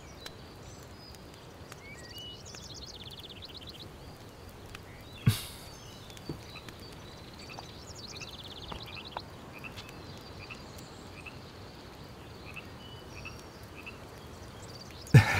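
Outdoor woodland ambience: a faint steady hiss with scattered bird chirps and two short, rapid trills, about two and eight seconds in. A single sharp click, the loudest sound, comes about five seconds in.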